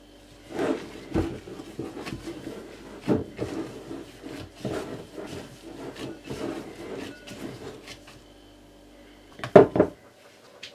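A hand in a thin plastic glove mixing and kneading crumbly shortcrust dough against a glass bowl: irregular rubbing and scraping strokes, then two sharper knocks near the end.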